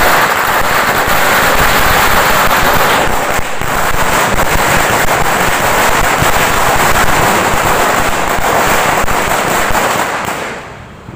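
A long firecracker string, a 5000-shot chatai, going off in one continuous rapid crackle of small bangs, thinning out and dying away near the end.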